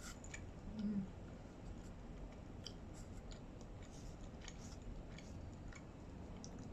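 Faint small clicks and crackles of pizza crust being torn apart by hand over its cardboard box, with a short hummed voice sound about a second in.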